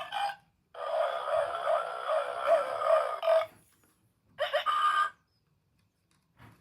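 Electronic sound effects from a battery-powered toy's tiny speaker, in three bursts. The middle burst is the longest, a warbling, tune-like sound of about two and a half seconds.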